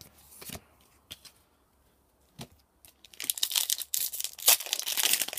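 A few light clicks of card handling, then from about three seconds in a foil Magic: The Gathering booster pack wrapper crinkling and tearing open.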